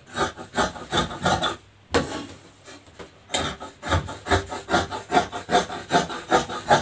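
Large tailor's shears snipping through fabric on a tabletop: a quick run of cuts, a single snip about two seconds in, a pause, then steady snipping at about three cuts a second.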